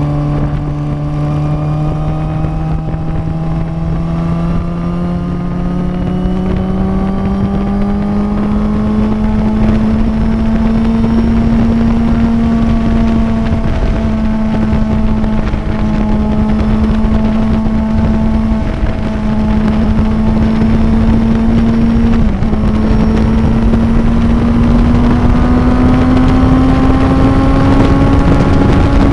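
Suzuki inline-four motorcycle engine running at road speed, its note climbing slowly as it accelerates, holding fairly steady with a few brief dips, then rising again near the end. Wind rushes over the microphone throughout.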